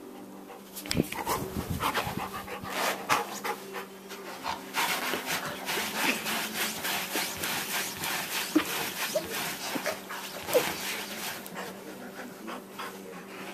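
Dog panting hard while scrabbling and pawing at a bed, with dense, irregular scratching and rustling of fabric. A few brief high squeaks come near the end, and it settles about a second before the end.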